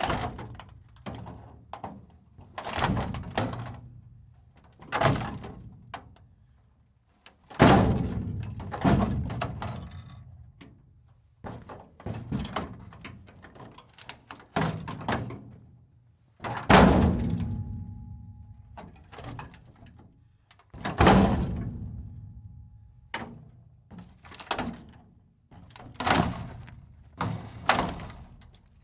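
A series of heavy metal impacts, each followed by clattering and a fading ring: metal machinery being struck and breaking apart. Some hits come in quick clusters, and one leaves a clear ringing tone for about two seconds.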